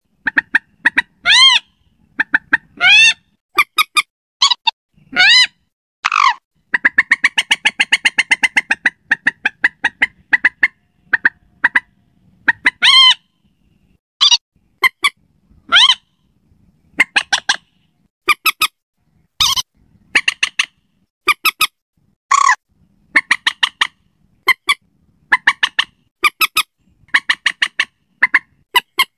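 Common moorhen calls: loud, harsh single notes and a rapid chattering run of many short notes, repeated with short silent gaps between them, as played from a recorded bird lure call.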